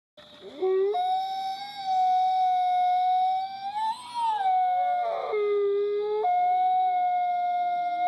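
Himalayan wolves howling in chorus: long, drawn-out howls from at least two wolves overlapping, one higher voice held steady and a lower one joining in and dropping out.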